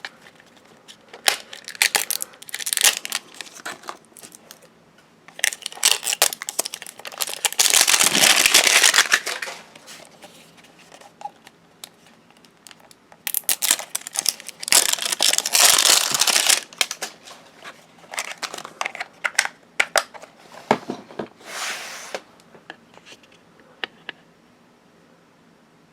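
Plastic wrappers of LOL Surprise doll packaging crinkling and tearing as they are opened by hand, in several bursts of a few seconds with pauses in between.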